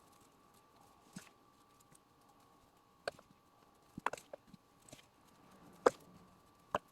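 Sporadic light clicks and taps of a spoon against an ice cube tray as dishwasher-tab powder is packed into the cups, the loudest tap near the end, over a faint steady hum.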